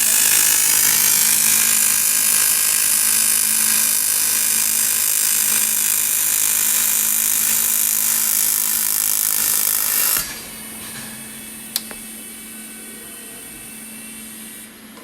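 TIG welding arc on aluminum: a steady harsh buzz that cuts off suddenly about ten seconds in, leaving a much quieter hum and then a single sharp click.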